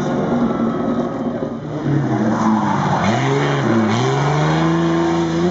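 Rally car engines at full throttle on a loose gravel stage. A second car comes in revving hard; its engine note drops and climbs again twice as it slides sideways through a corner, then holds high, with gravel and dust spraying from the tyres.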